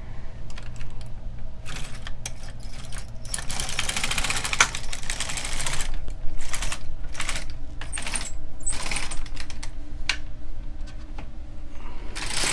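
Silver Reed LK150 knitting machine carriage pushed across the needle bed to knit two rows, one pass each way, its needles clicking and clattering in a rapid run on each pass.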